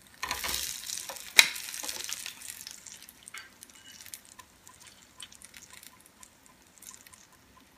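Banana wontons frying in shallow oil, sizzling and crackling, strongest at first and fading to faint crackles. A sharp click about a second and a half in.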